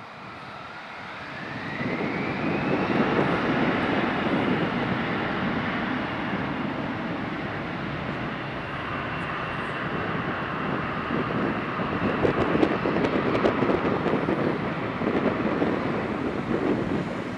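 Bombardier CRJ900's two rear-mounted GE CF34 turbofan engines spooling up, a whine rising in pitch over the first few seconds as thrust comes up. This gives way to loud, steady jet engine noise with a high whine for the takeoff.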